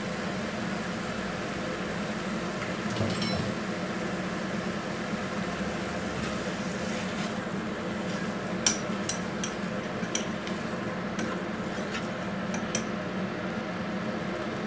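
Wooden chopsticks clicking and scraping against a metal cooking pot as bean curd sheets are stirred, a handful of sharp knocks in the second half. A steady background hum runs under it.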